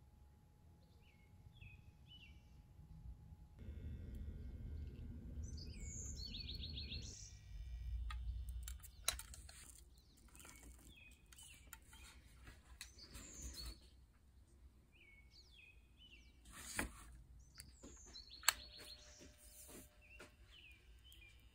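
Faint birds chirping in the background, short calls recurring every few seconds, with a low rumble from about four to nine seconds in and a few sharp clicks.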